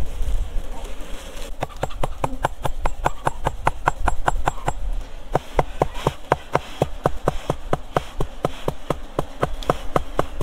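Steady, even tapping on a hollow log beehive, about four knocks a second, starting about a second and a half in, over the buzz of honey bees.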